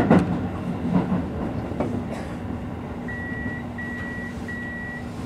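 Keio Line electric train running slowly, heard from behind the driver's cab: a steady low hum with a few knocks in the first two seconds. In the second half, three identical high electronic beeps of about half a second each sound from the cab.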